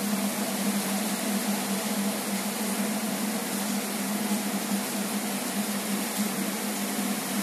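Heavy rain pouring down in a steady, even hiss, with a steady low hum under it.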